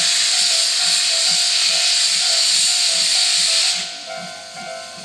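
Steam locomotive C58 363 venting steam in a loud hiss as it departs, which cuts off almost four seconds in. Under it runs a repeating two-note ringing.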